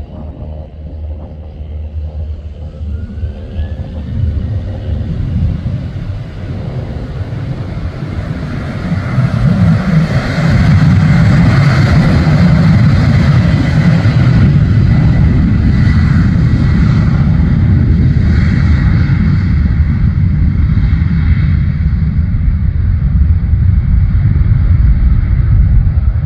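Boeing 737-800's CFM56 turbofan engines at takeoff power as the jet rolls down the runway. A deep rumble grows, jumps in loudness about nine seconds in and then holds at a loud, steady level, with a faint high whine over it.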